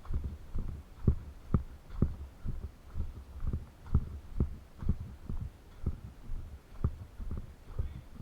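Footsteps of someone walking over ground, a steady rhythm of low thuds about two a second, each with a short scuff.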